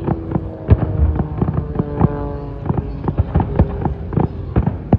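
Drums beating, several strikes a second at an uneven rhythm, over held notes of accompanying music.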